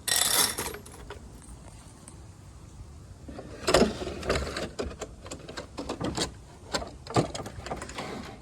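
Wooden drawer on caster wheels being rolled, with a loud scraping burst at the start, then a run of clicks and knocks from about three and a half seconds in.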